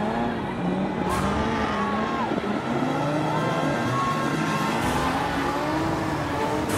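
Drift cars' engines revving hard with tyres squealing as the cars spin and slide in circles.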